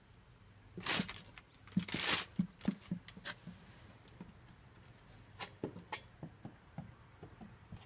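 A young goat's hooves tapping and clicking irregularly on a hardwood floor, with two louder scuffs about one and two seconds in.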